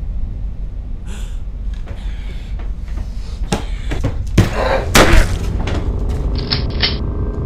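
A shotgun blast about five seconds in, the loudest sound here, with a shorter bang just before it, over a steady low rumble.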